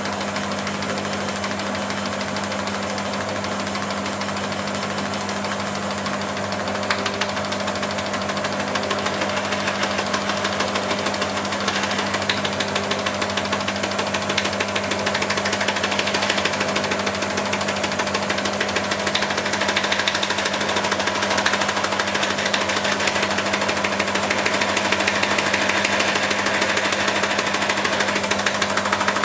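Band saw running: a steady motor hum under a fast, even rattle, growing slightly louder through the stretch.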